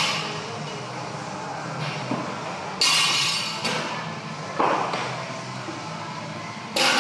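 Loaded barbell knocking on the floor and its plates clinking during deadlift reps, several sharp knocks with a short ringing after each, over faint background music.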